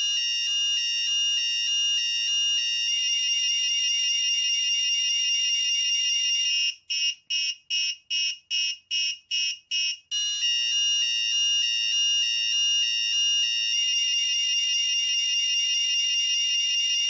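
Arduino-driven electronic alarm buzzer sounding a continuous high-pitched warbling alarm. For about three seconds in the middle it breaks into rapid beeps, about three a second. It is the motion alarm set off by the circuit's ultrasonic sensor detecting movement.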